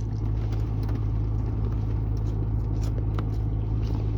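Someone biting into and chewing a steak taco, with scattered faint clicks over a steady low hum.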